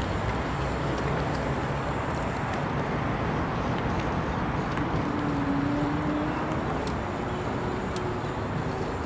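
Steady rush of wind and tyre noise from a Zooz electric BMX bike being ridden along a paved path, with a faint whine from the bike's motor about halfway through.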